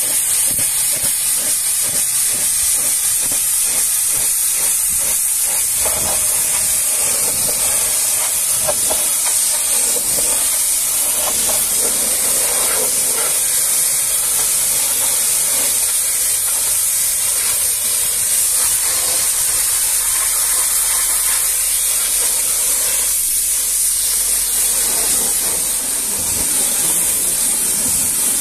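High-pressure washer lance spraying a steady hissing jet of water against a tanker truck's steel tank, wheels and underbody. The spray's sound shifts as the jet moves over different surfaces.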